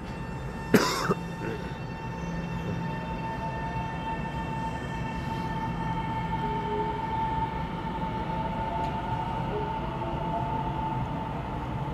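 Electric multiple-unit trains moving through an underground station: a steady high electric whine and faint gliding motor tones over a low rumble as the EMU730 local pulls out and the EMU3000 express comes in. A short sharp click about a second in.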